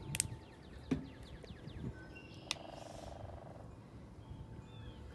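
Plastic paint bottles being handled and squeezed, giving a couple of light clicks in the first second and a short buzzy sputter about two and a half seconds in, over faint, quick, high chirping outdoors.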